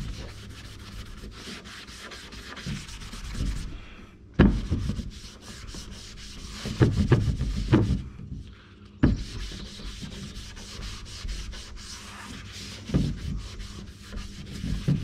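A wet wipe being scrubbed back and forth over a tractor's painted cab roof, a steady scratchy rubbing that cleans the surface for adhesive tape. It stops briefly twice, with a few dull thumps on the roof.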